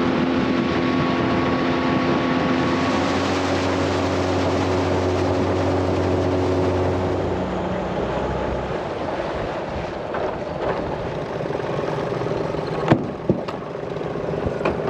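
Boat's outboard motor running under way, with a rush of wind and water over it; about halfway through the engine note drops and changes as it is throttled back. Two sharp knocks come near the end.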